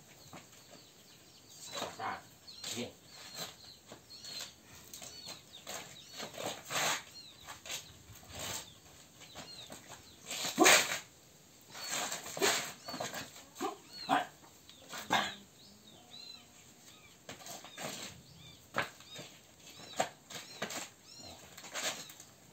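Scuffling of a hand-to-hand drill: flip-flop steps slapping and scraping on a concrete floor, with clothing rustle, as a string of short, sharp, irregular sounds. The loudest is a single slap about eleven seconds in.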